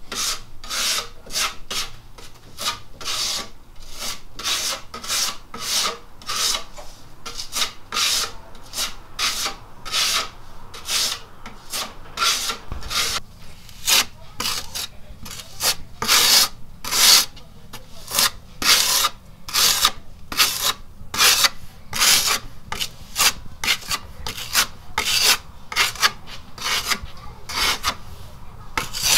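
Filler knife scraping and smoothing spackle over screw holes in the laminated side panel of an IKEA Billy bookcase, in short repeated strokes about two a second.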